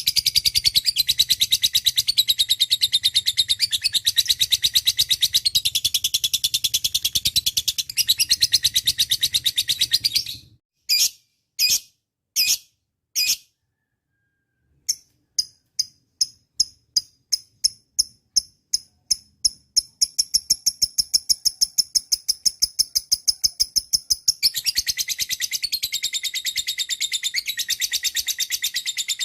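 Lovebird chattering in long runs of rapid, high chirps. About ten seconds in, the run breaks into a few separate calls and a brief silence. It then resumes with spaced chirps that quicken into a continuous run again.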